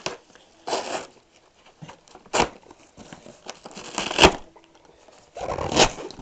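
Cardboard packaging being handled and pulled open: four separate scraping, crinkling bursts, the sharpest about four seconds in.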